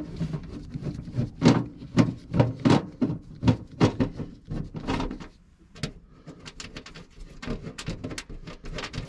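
Hands handling small hard parts and their packaging: a quick run of clicks, knocks and rustles, busiest in the first five seconds, then lighter scattered ticks.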